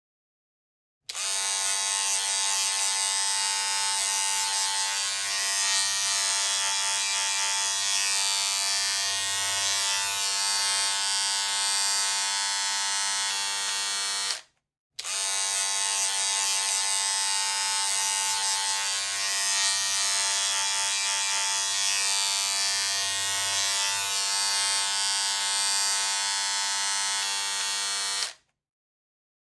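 Electric hair clippers buzzing steadily. The buzz stops suddenly about halfway, then starts again at once and runs as long again before cutting off near the end.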